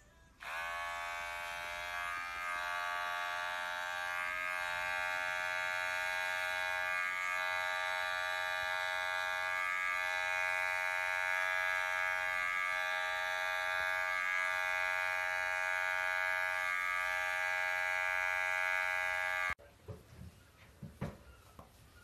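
Electric pet hair clipper running steadily as it is drawn over a cat's fur. It switches on about half a second in, rising briefly in pitch as it spins up, and cuts off suddenly near the end.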